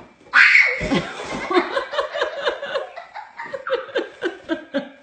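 Hearty laughter in quick repeated bursts, about four or five a second, starting with a sudden loud outburst and a thump just under a second in.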